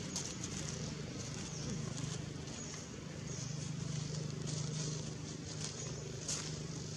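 Outdoor ambience: a steady low hum under an even high-pitched insect-like buzz, with a few faint ticks.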